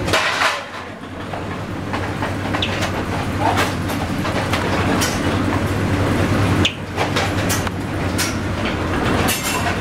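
Automatic chapati-making machine running: a steady low hum with irregular, sharp clacks every second or so.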